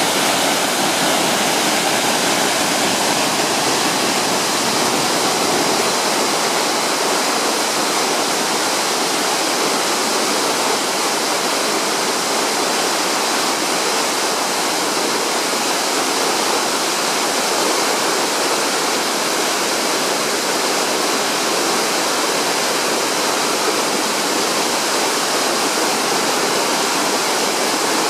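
A tiered mountain waterfall rushing with a steady, unbroken roar of falling water.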